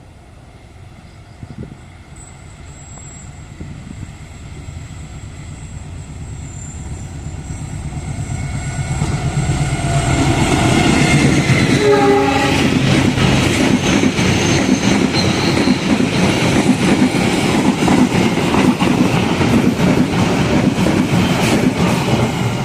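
Diesel-hauled train approaching and passing close by: its sound grows steadily over about ten seconds, then the wheels clatter loudly and continuously over the rail joints.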